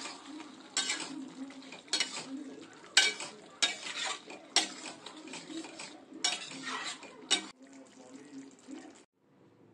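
Metal spatula stirring and scraping a thick prawn and pointed-gourd curry in a kadai, clinking against the pan about once a second, over a low sizzle of the simmering curry. The sound stops abruptly near the end.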